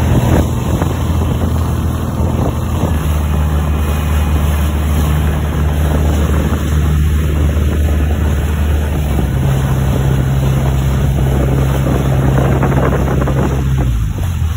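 Small passenger ferry's engine running under way, with the propeller wash churning at the stern and wind on the microphone. The engine note shifts about two-thirds of the way through and drops away near the end as the boat throttles back.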